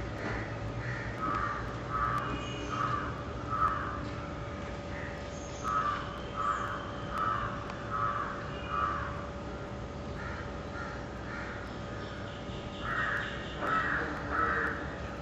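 A crow cawing: harsh caws a little under a second apart, in runs of three to five with short pauses between runs.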